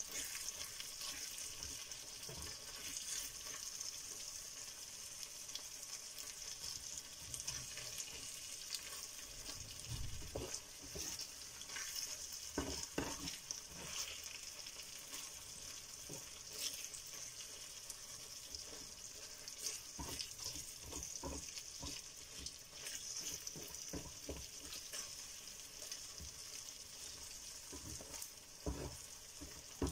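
Ground pork sisig sizzling in a frying pan as it is stirred and turned with wooden spatulas, with a steady hiss and scattered knocks and scrapes of wood against the pan.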